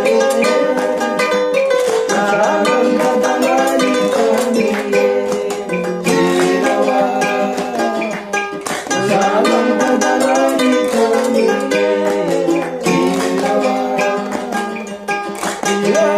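Background music led by a plucked string instrument like a ukulele, in a bright, quick strummed and picked pattern.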